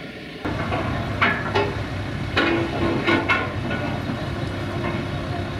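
Heavy steel parts of a low-loader trailer clanking and banging as it is dismantled: several sharp metallic knocks that ring briefly, over a running engine.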